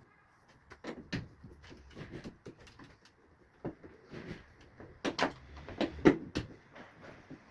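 Irregular clicks, knocks and clanks of metal and plastic washing-machine parts being handled and worked loose during disassembly. The loudest knocks come about five to six seconds in.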